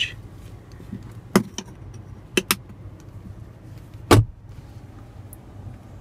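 Several sharp clicks and knocks inside the pickup's cab, the loudest about four seconds in, over a steady low hum.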